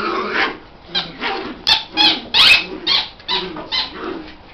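Dogs barking in a rapid run of short, sharp barks during rough indoor play, the loudest barks about two seconds in.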